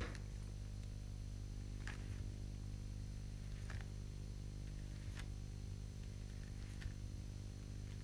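Steady low electrical hum, with a few faint, brief scratches of pencil strokes drawn on paper, about four spread over the stretch.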